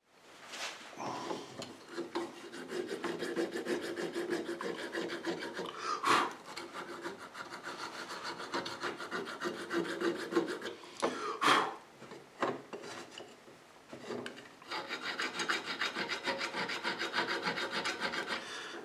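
Needle file scraping back and forth on a small lead toy figure in a fast run of short strokes, with a couple of brief pauses and a few louder knocks.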